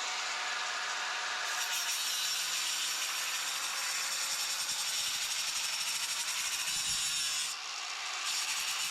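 Saw cutting through wood in a continuous run, breaking off briefly near the end and then carrying on.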